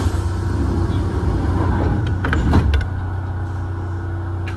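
Steady low hum of a Kintetsu 2000 series train standing at a station, with a few short clicks and knocks about two to three seconds in.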